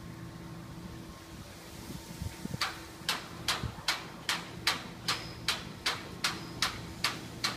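Railway level-crossing warning bell, starting about two and a half seconds in and then ringing in an even, steady rhythm of about two and a half strikes a second. It signals that a train is approaching the crossing.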